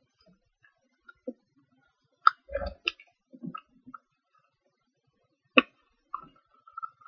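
A sheet of paper being folded and creased by hand, giving irregular crinkles and crisp snaps. The loudest cluster comes about two and a half seconds in and a single sharp crack about five and a half seconds in, with a brief squeak near the end.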